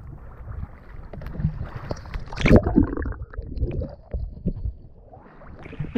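Water lapping and splashing against the hull of an Oru folding kayak, under a low rumble, with one louder splash about halfway through.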